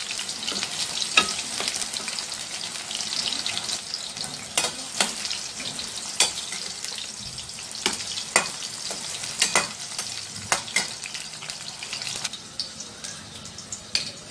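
Whole slit eggplants, still wet from salt water, sizzling and spattering in hot oil in a steel kadhai, with a dozen or so sharp clicks scattered through it. The sizzle thins out near the end.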